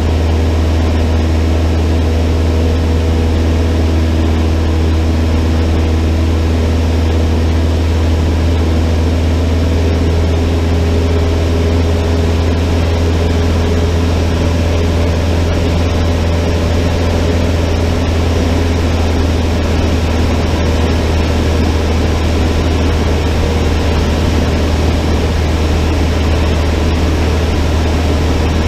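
Cessna 152's four-cylinder Lycoming O-235 engine and propeller running steadily in flight, a constant loud low drone with faint, slightly wavering tones above it.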